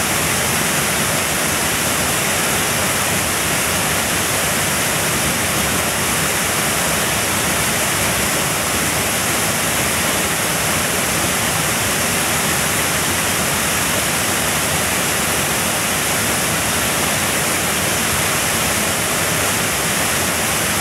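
Small waterfall pouring down a rock face and splashing into a pool: a steady, unbroken rush of falling water.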